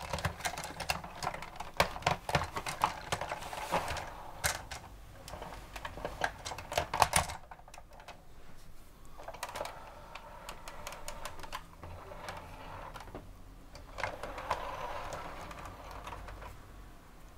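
Rapid plastic clicking and rattling as a toy crane's bucket arm is worked by hand, dense for about seven seconds, then giving way to softer handling noise with the odd click.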